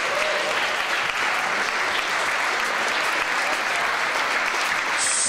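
A large audience applauding, with a faint shout near the start.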